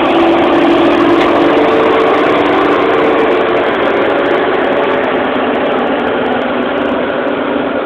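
Tractor engine running steadily under load while its boom-mounted flail mower head spins against a hedge, cutting it. The sound grows slowly fainter and a little lower in pitch in the second half.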